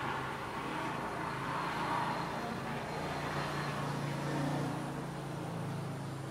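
A motor vehicle's engine hum with road noise, swelling about two seconds in and easing off near the end.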